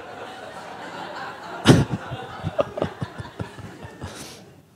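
Audience laughter dying down, with a sharp thump about a second and a half in, then a few short scattered laughs that trail off.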